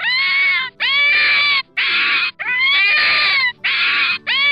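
Fox screaming: a run of about six harsh, raspy calls in quick succession, each under a second long and rising in pitch at its start.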